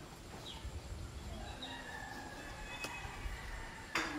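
A bird calls in the background, one drawn-out call that rises and falls, with a few faint high chirps. Near the end there is one short, sharp rustle or tap.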